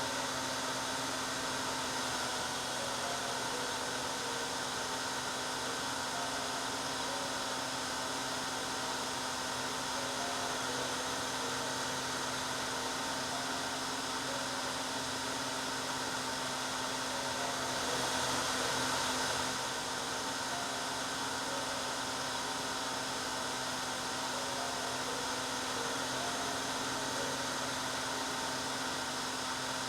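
Hair dryer running continuously: a steady blowing rush with a constant motor hum, swelling slightly for a moment a little past halfway.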